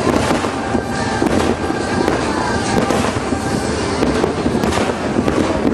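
Fireworks display: aerial shells bursting one after another, a dense run of bangs over continuous crackling.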